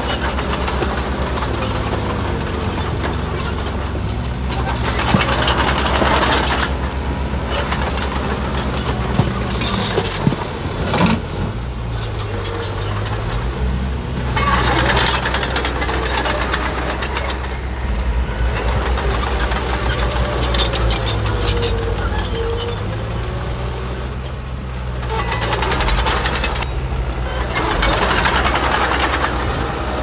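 Diesel engines of heavy earthmoving machinery, bulldozers and dump trucks, running and working, the engine note rising and falling as they rev under load. Several louder bursts of noise come and go over it.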